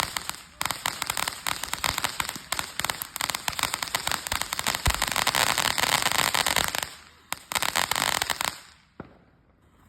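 Fireworks going off in a rapid, dense string of cracks and pops, easing off with a few last bursts and one final crack near the end.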